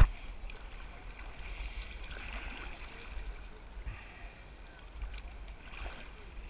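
Ocean water lapping and sloshing around a camera held at the sea surface, over a low steady rumble.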